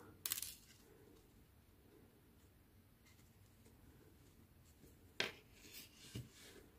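Mostly near silence with faint handling noises from sewing a crocheted ear onto an amigurumi head: a short scratchy click just after the start, another sharp click about five seconds in, then soft rustles of yarn.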